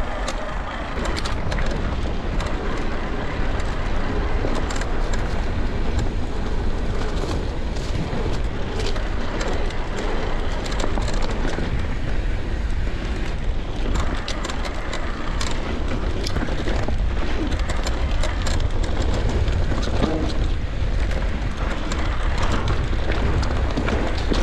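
Riding noise from an electric mountain bike on a trail: steady wind rumble on the microphone, tyres rolling over the ground, and frequent small clicks and rattles from the bike jolting over roots and stones.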